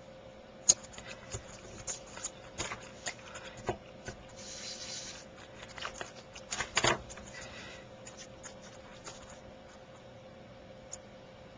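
Hands handling and pressing down small pieces of card and paper: scattered light taps and paper rustles, a short rubbing sound about four and a half seconds in, and a quick cluster of louder clicks a little before seven seconds, over a faint steady hum.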